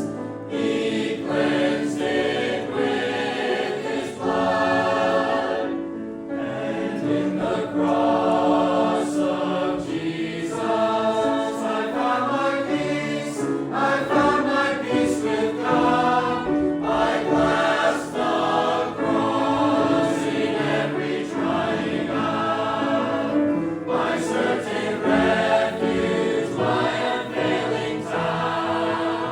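Church choir singing a gospel hymn, many voices together in sung phrases with short breaths between them.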